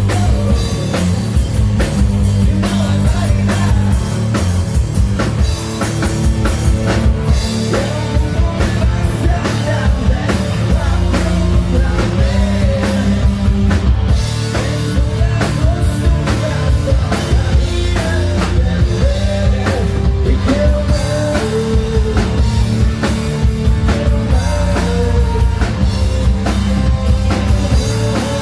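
Melodic hard rock band playing live: drum kit, electric guitars and a lead vocal, loud and continuous.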